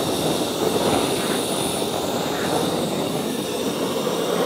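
Large hose-fed MAP-gas torch burning steadily, a continuous rushing flame noise, as it heats a seized steel nut.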